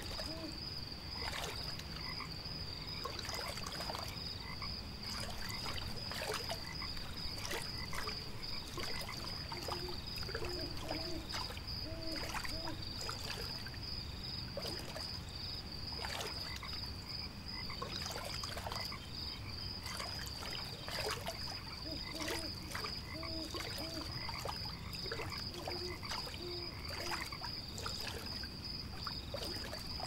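Frogs croaking in short, repeated calls over a steady, high-pitched pulsing trill, with scattered soft clicks and a low, even rush in the background.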